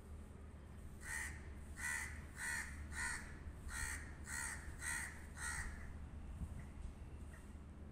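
A crow cawing in a series of about eight harsh caws, roughly one every half second, then stopping; a steady low hum runs underneath.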